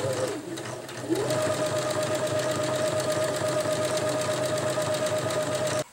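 Electric sewing machine stitching a seam at a steady speed. It eases off briefly about half a second in, winds back up at about a second, and stops suddenly near the end.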